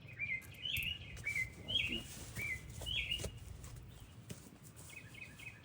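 A bird chirping in a series of short, high calls, pausing for a second or two before a few more near the end, with a few light clicks.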